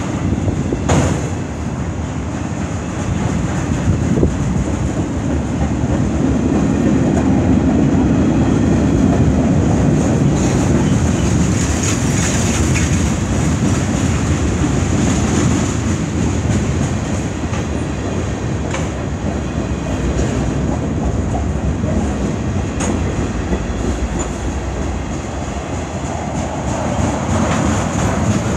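Freight train's autorack and tank cars rolling past: a steady rumble of steel wheels on the rails with occasional sharp clanks, easing slightly near the end as the last cars go by.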